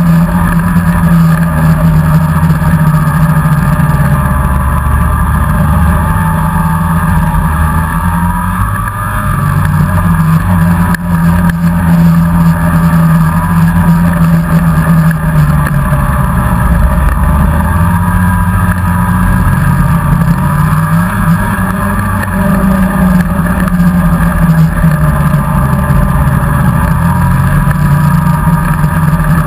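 Polaris snowmobile engine running at speed under the rider, steady and loud, easing off twice and revving back up.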